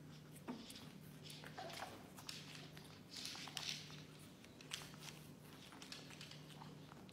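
Chihuahua biting and chewing a slice of watermelon: faint, irregular wet crunches and smacking clicks.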